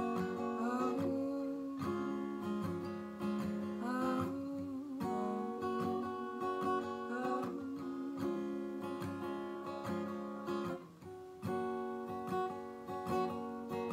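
Acoustic guitar strumming chords, with the chord changing every few seconds.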